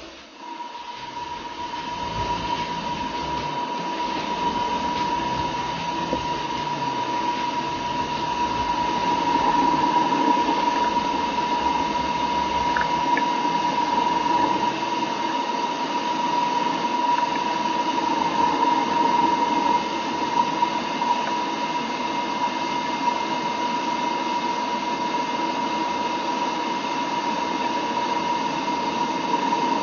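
Metalworking machine tool running with a steady high whine over a mechanical hiss; the whine starts just after the beginning and holds evenly.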